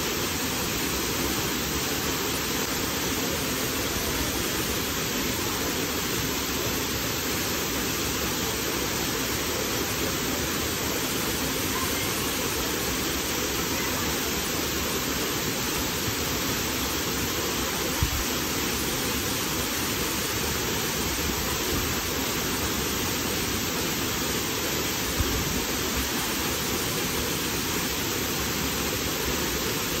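Waterfall pouring into a plunge pool: a steady, loud rush of falling water, with a couple of brief low thumps.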